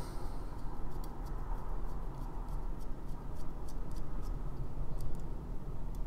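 Small, irregular clicks, a few each second, from the plastic threads and parts of a Wing Sung 601 fountain pen as its filling-mechanism end is unscrewed by hand from the barrel.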